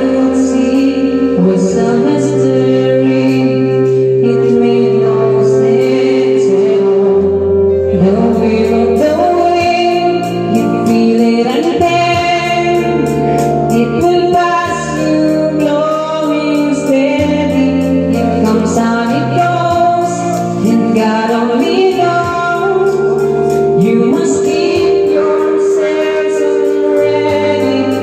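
Karaoke: a voice singing into a wired microphone over a backing track with a steady beat and a bass line, the singer holding long notes.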